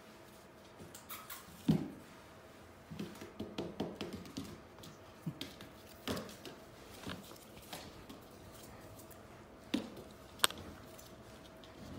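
Goldendoodle puppy playing with its toys on a tile floor: scattered light taps, scuffs and thumps of paws and toys, with a louder thump a little under two seconds in and a sharp click near the end. A faint steady hum runs underneath.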